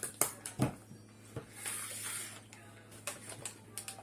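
Light handling noises: a few scattered soft clicks and taps, with a brief rustle near the middle, as of a snack bag or popcorn being handled.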